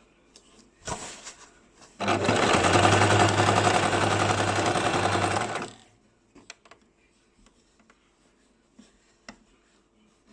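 A basic electric sewing machine runs for about four seconds, stitching with a steady hum, then stops. A short clatter comes just before it, and a few light clicks follow.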